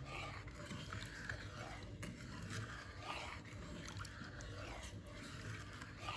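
Faint stirring of palm sugar into water in a bowl: small, scattered spoon and liquid sounds as the sugar is mixed until it dissolves.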